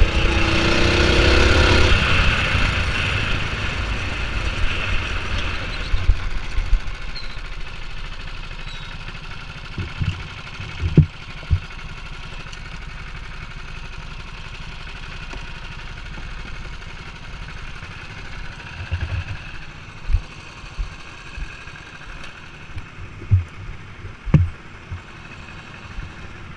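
Go-kart engine heard from on board: running loudly under way at first, then dropping over the first few seconds to a lower steady idle as the kart slows. A few short, dull thumps come through now and then in the second half.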